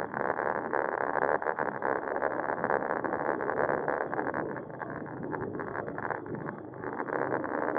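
Riding noise picked up by a bicycle-mounted action camera: a steady rush of wind and road noise, with many small rattles and clicks from the bike over the road surface.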